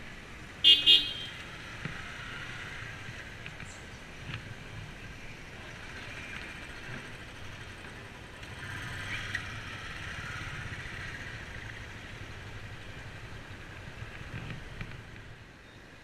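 Two short, loud toots of a motorcycle horn, about a quarter second apart, then a steady low hum of engines and traffic.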